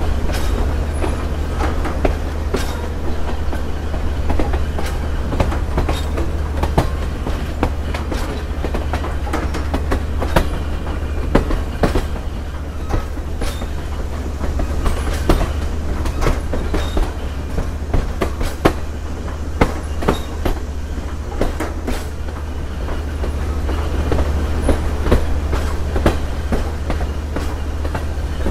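Passenger train cars rolling along the track, heard from an open vestibule between coaches: a steady low rumble with frequent irregular sharp clicks and knocks from the wheels and running gear.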